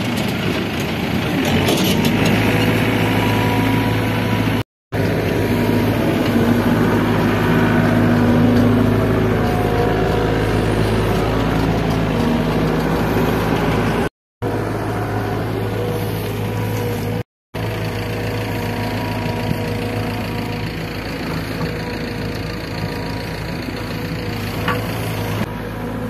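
SDLG E680F crawler excavator's diesel engine running steadily under working load as the machine digs. The sound cuts out briefly three times.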